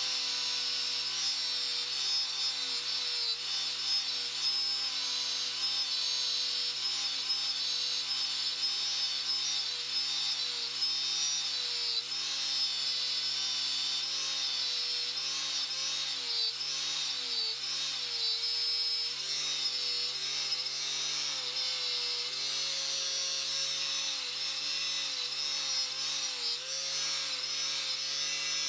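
Electric angle grinder with a cup brush running steadily at speed, scrubbing tarnish off an acid-treated metal buckle held against the brush. Its whine sags in pitch several times, heaviest in the middle and near the end, as the buckle is pressed on.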